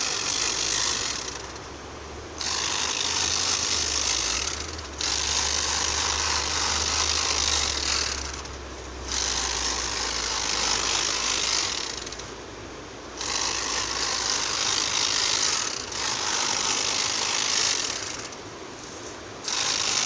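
Battery-powered Bosch tea-harvesting machine running at speed as it cuts tea shoots, a steady high mechanical buzz that dips briefly about every three to four seconds.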